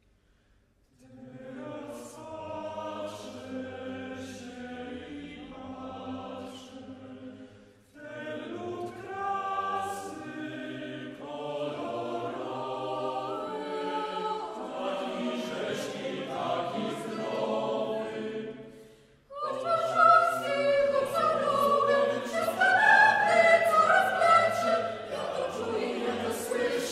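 Mixed chamber choir of soprano, alto, tenor and bass voices singing in Polish. The singing comes in three phrases with short breaks between them, the last one the loudest.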